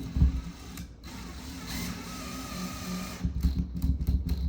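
Drill driving a one-inch drywall screw through a railing bracket into the wall. The motor whirs in a long run with a short break about a second in, then turns rougher and choppier near the end.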